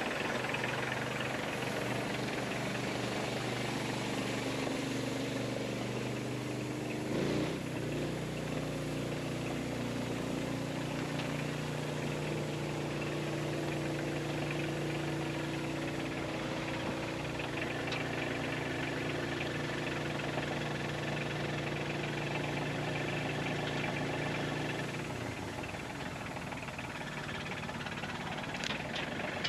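Kioti compact tractor's diesel engine running, moving a log on its front loader. It picks up to a higher steady speed with a brief knock about seven seconds in and eases back down near the end, followed by a couple of sharp clicks.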